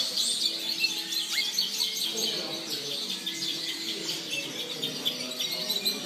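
Many caged songbirds, finches and canaries, chirping and singing over one another in a dense, continuous chorus of short high chirps and trills.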